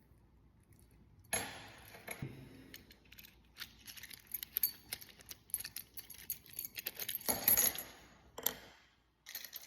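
Keys jangling and small metal lock parts clinking while being handled, in irregular bursts, loudest about three-quarters of the way through.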